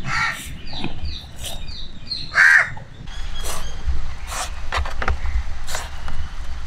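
Crows cawing: a caw right at the start and a louder one about two and a half seconds in, followed by fainter short calls.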